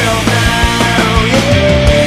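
Loud rock music: a band with drums keeping a steady beat and a lead line that bends in pitch.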